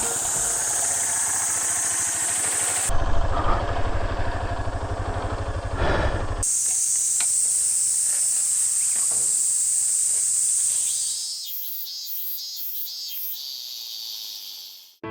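Outdoor ambience with a steady high hiss of insects. From about three to six seconds in, a low rumble of a motorcycle riding, engine and wind together, comes in and cuts out. Near the end, a high insect call pulses about three times a second.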